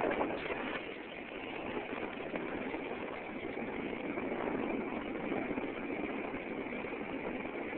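A steady rushing noise from riding a bicycle, picked up by a mobile phone's microphone.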